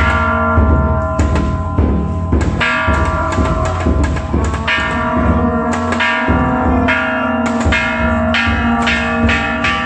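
Metal bells struck over and over in an uneven rhythm, their ringing piling up, with a low drum beating underneath.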